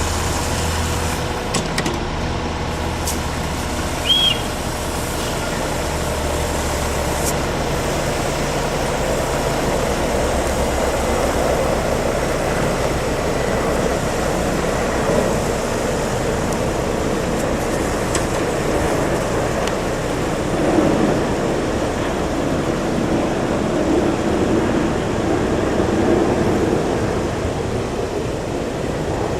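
Heavy truck engine running steadily, its low hum fading after several seconds into a steady rushing noise; a brief high squeak about four seconds in.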